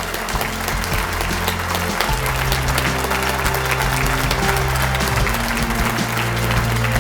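Audience applauding, over background music whose low notes change every few seconds.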